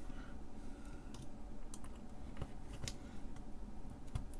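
A handful of faint, scattered clicks and taps as a seven-segment display is handled and pressed into its socket on a circuit board.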